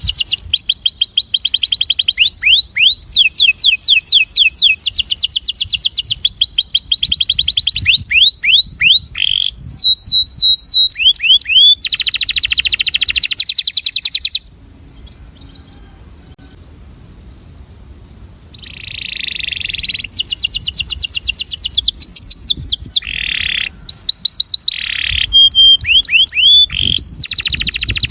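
Breeding male canary singing its attraction song: fast runs of repeated high notes and trills, each run lasting a second or two before switching to a new note type. About halfway through the song stops for some four seconds, then starts again.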